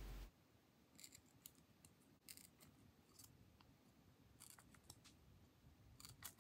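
Faint, short scratchy clicks, about nine scattered ones, of a small screwdriver tip poking through foam grip tape into the truck-screw holes of a wooden fingerboard deck.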